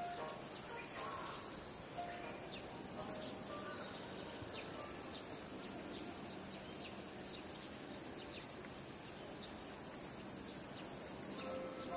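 Steady high-pitched drone of an insect chorus, with brief high chirps scattered through it.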